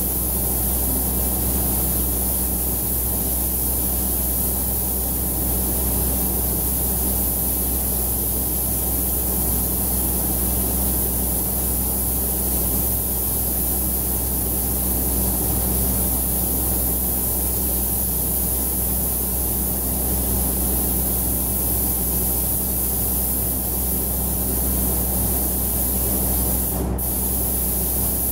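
Air-fed spray gun hissing steadily as paint is sprayed, over a steady low hum. The hiss drops out for an instant near the end.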